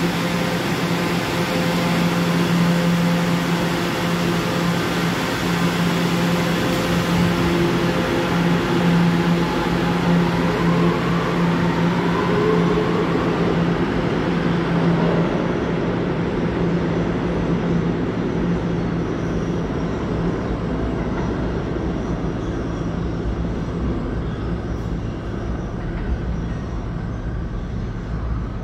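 New York City subway A train pulling out of an underground station: a steady hum at first, then a rising motor whine as it accelerates, and its rumble fading as it runs away down the tunnel.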